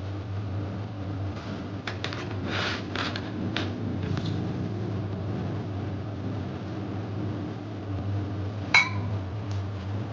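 A steady low mechanical hum, with scattered light clicks and rustles and one sharp ringing clink near the end.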